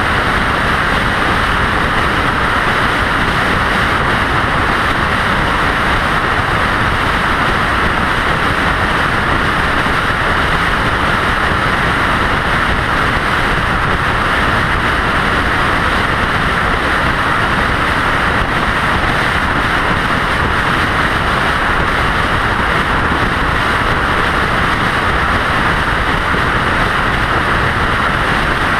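Steady road and wind noise of a vehicle driving at highway speed: an even, unbroken rush with no changes.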